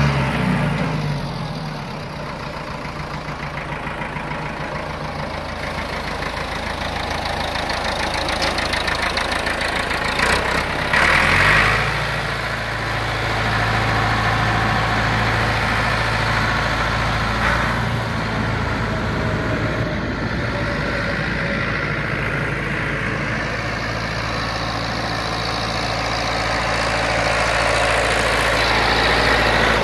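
Ford 6610 tractor's four-cylinder diesel engine running as the tractor drives. The engine note drops about a second in and rises again about a third of the way through, with a brief rush of noise just before the rise.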